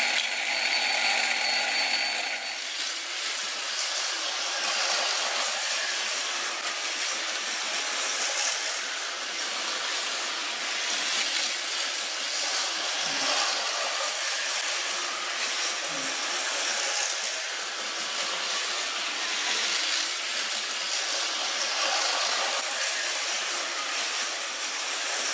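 Small electric motors of Tyco US1 slot-car trucks buzzing as they run around the plastic track. A steady whine in the first couple of seconds gives way to a rougher buzz that swells and fades every few seconds.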